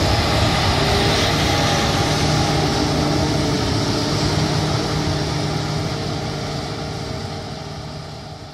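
Claas combine harvester running steadily with a low hum. The sound fades away over the last few seconds.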